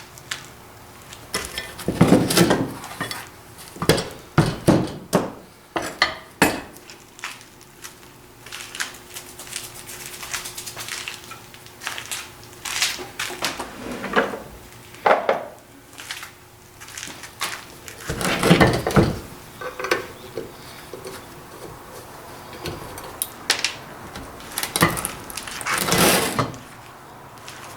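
Irregular metal clanks and knocks from working on the parts of a Columbian woodworking vise, coming in clusters with the loudest groups a few seconds in and about two-thirds of the way through.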